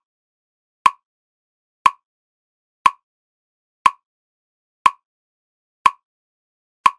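A short, sharp, mid-pitched tick repeating steadily once a second, seven times, with dead silence between: a metronome-style click.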